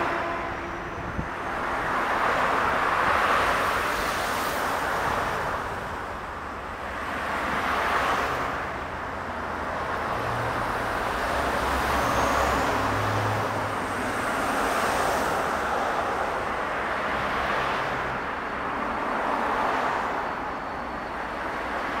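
GM GT22CW2 diesel-electric locomotive running as it pulls slowly away with its train, a low engine drone that grows stronger about ten to thirteen seconds in. Over it lies a rushing noise that swells and fades every couple of seconds.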